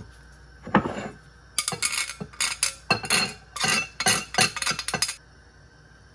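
A metal spoon scraping grated galangal off a metal grater and clinking against it and a ceramic bowl: one knock about a second in, then a quick run of scrapes and clinks for about three and a half seconds.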